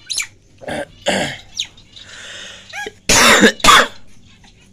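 Two loud, harsh coughs in quick succession about three seconds in, after a few softer short noises.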